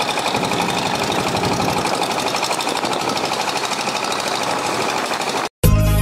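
A boat's engine running at a steady speed with a fast, even mechanical chatter. It cuts off abruptly near the end, and music begins.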